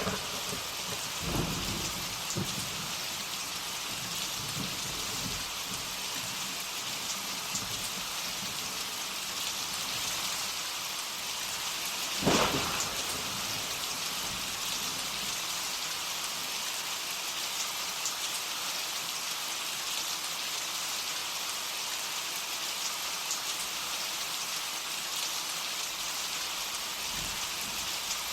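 Thunderstorm: steady heavy rain, with low thunder rumbles in the first few seconds and a sharp thunderclap about twelve seconds in.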